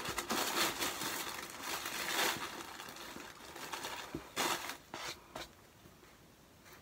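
Packaging crinkling and rustling as a new pair of shoes is unwrapped and lifted out of its box. The rustling runs for the first couple of seconds, then comes as a few short bursts between about four and five and a half seconds in.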